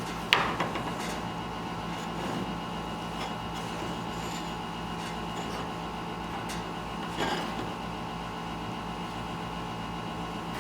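Wood lathe running steadily, with two brief louder scrapes, about a third of a second in and again about seven seconds in.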